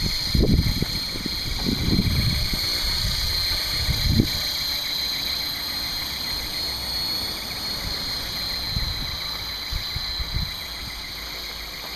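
Esky Belt CP V2 electric RC helicopter flying overhead, giving a steady high-pitched motor and rotor whine. Low rumbling bursts come in the first four seconds.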